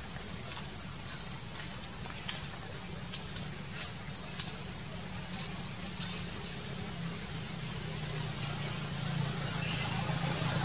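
Steady high-pitched insect drone, with a few sharp ticks in the first half and a low engine hum that grows louder near the end.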